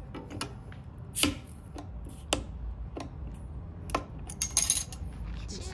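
Tableware or cooking utensils clinking and clattering as they are handled, a sharp strike about once a second with a quick cluster of clinks near the end.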